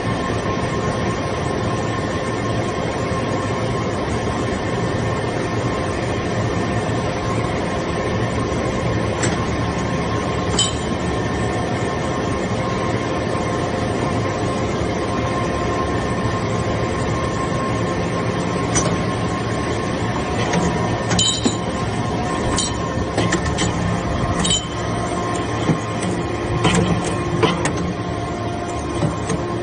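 Hydraulic metal chips baler running: a steady machine hum with several fixed tones, with scattered sharp metallic clinks from about a third of the way in, more frequent near the end.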